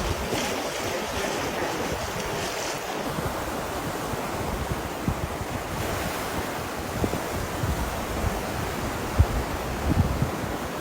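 Surf breaking steadily on a beach, with wind buffeting the microphone; several low wind thumps come in the second half, the strongest near the end.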